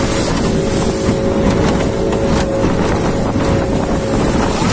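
Motorboat engine running steadily at speed, with wind buffeting the microphone and water rushing past the hull.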